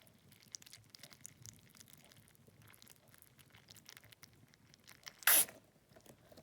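Hands squeezing and digging into a liquid-filled squishy toy: faint wet squishing and small crackles, then one short, loud hissing burst just after five seconds in.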